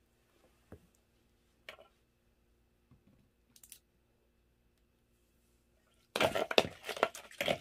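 A few small clicks, then about six seconds in a loud burst of irregular crinkling and crunching from food being handled.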